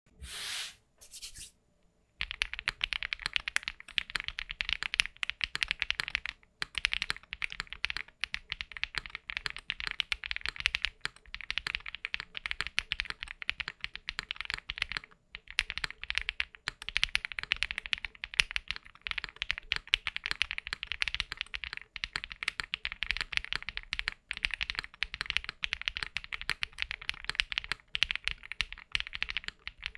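Continuous fast typing on a mechanical keyboard fitted with KTT Strawberry linear switches, their stems lubed with Krytox 205g0, giving rapid overlapping keystroke clacks. A brief hiss comes before the typing starts, and the typing breaks off for a moment three times.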